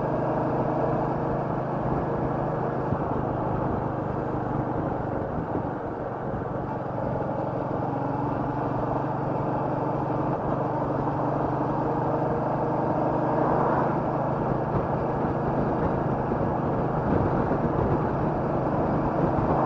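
Royal Enfield Meteor 350's single-cylinder engine running steadily while riding, mixed with wind and road noise.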